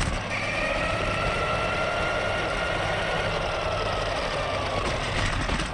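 Electric drive motor of an RC truck running on a 3S LiPo at full throttle: a steady high whine that slowly drops in pitch, over a low rumble.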